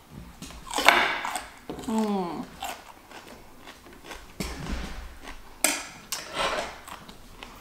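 Crunchy bites and chewing of a fresh cucumber piece, with loud crisp crunches about a second in and again several times in the second half. A short falling whine-like sound comes about two seconds in.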